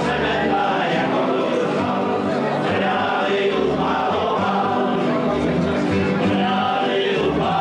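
Live music: several voices singing together to acoustic guitars and a double bass, the bass notes changing every second or so.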